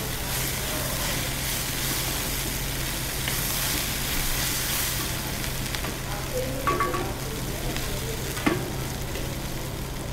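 Okra, onions and chillies sizzling in a hot cast iron kadai as a wooden spatula stirs and tosses them, with a steady hiss and a couple of short knocks of the spatula against the pan about two-thirds of the way through.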